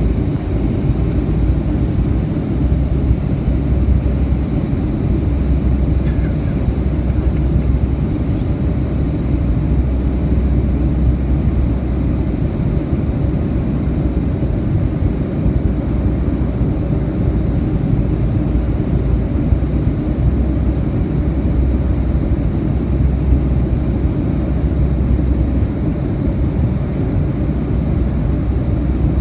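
Boeing 757-200 airliner cabin noise heard from a window seat over the wing during descent: a steady, low, even rush of engines and airflow, with a faint thin high tone above it.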